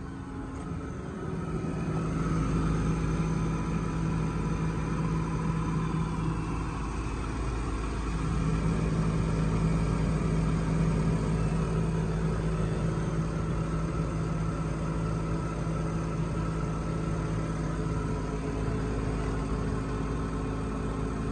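2004 Chevrolet Silverado pickup's engine idling steadily, getting louder about two seconds in.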